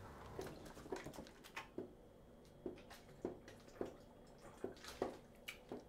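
A person gulping water from a plastic bottle: a run of faint swallows, about two a second.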